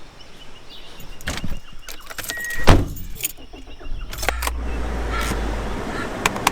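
Clicks and rattles of keys and a car door, with one loud door-closing thud, then a car engine starting about four seconds in and running with a steady low rumble.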